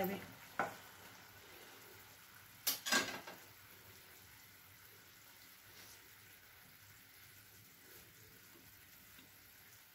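Sugar syrup simmering faintly around fried sweets in a frying pan over a gas flame, a soft steady bubbling hiss as it comes up to the boil. A short knock about half a second in and a pair of sharper knocks about three seconds in.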